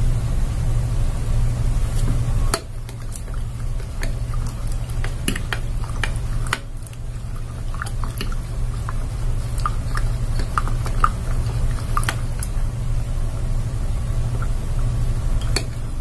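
A metal spoon stirring liquid in a glass pitcher, with scattered light clinks of the spoon against the glass and the liquid swishing, over a steady low hum.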